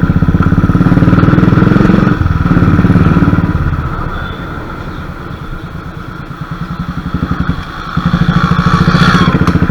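Royal Enfield motorcycle engine running while riding. It pulls loudly for the first three seconds or so, drops to a quieter run from about four to eight seconds in, then pulls loudly again.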